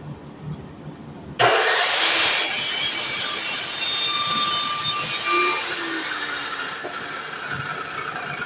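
DeWalt miter saw switching on abruptly about a second and a half in and running loudly with a high-pitched motor whine, its pitch sagging slowly in the second half.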